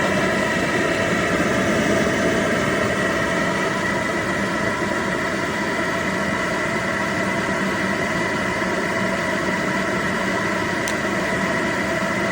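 Motor of an AIRROBO T20+ robot vacuum running at a loud, steady whir with a high whine. Its pitch winds down as it stops near the end.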